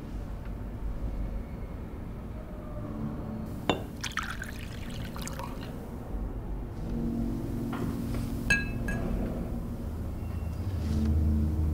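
Liquor poured from a glass bottle into a glass: a sharp clink as bottle meets glass, a short pour, then a second ringing clink of glass about two-thirds of the way through.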